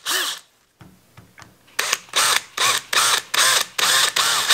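Handheld power drill run in short trigger pulses, each spinning up and back down, its bit boring into the heads of small brass pins in a stag knife handle. One pulse, a pause of about a second and a half, then a quick run of about seven pulses, roughly two a second.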